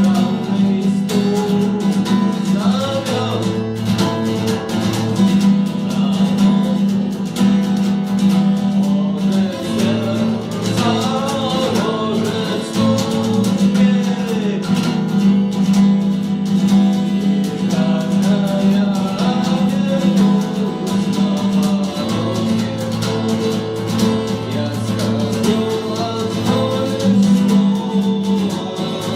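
Guitar-based rock music: a steady bass part shifting between notes every few seconds, with a winding melody line on top.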